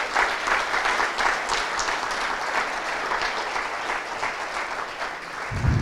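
Audience applauding, the clapping thinning out toward the end, with a low thump near the end.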